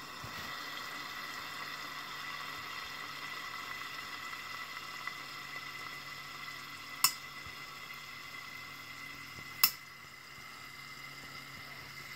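Liquid nitrogen boiling around a lit 12-volt white LED strip submerged in a metal container: a steady fizzing hiss, with a faint steady high tone under it. The bubbling is strongest where the strip sits. Two sharp clicks come about seven seconds in and again a few seconds later.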